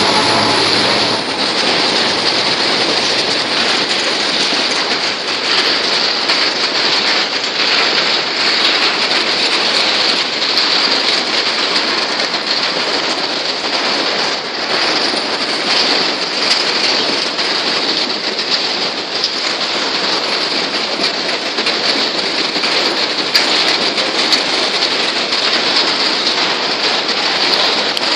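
Empty grain hopper wagons of a metre-gauge freight train rolling past: a steady, dense rush of wheels on rail with fine rattles throughout.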